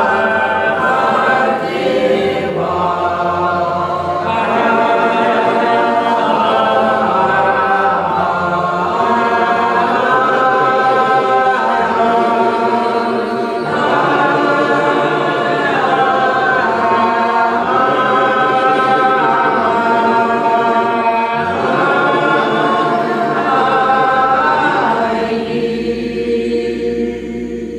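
Doukhobor choir singing a psalm a cappella in slow, long-held multi-part harmony, the final chord fading out near the end.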